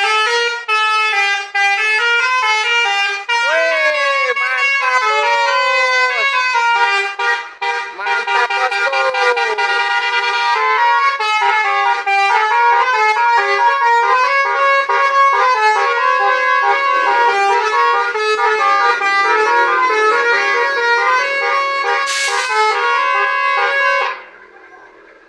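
Bus telolet horn, a multi-tone musical air horn, playing a long run of stepped melodic notes, then cutting off suddenly near the end. A short hiss of air sounds shortly before it stops.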